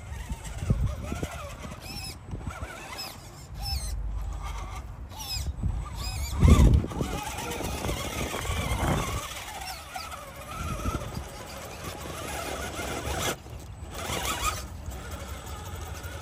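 Radio-controlled car driving on a track, its high whine rising and falling as the throttle is worked. A loud low thump comes about six and a half seconds in.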